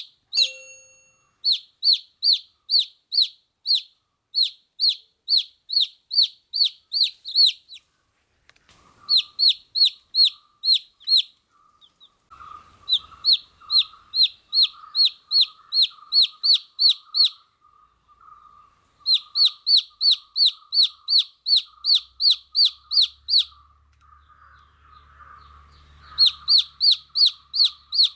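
Baby chicks peeping: loud, high, downward-sliding peeps about three a second, in runs broken by short pauses. From about nine seconds in, a softer, lower chattering call runs underneath.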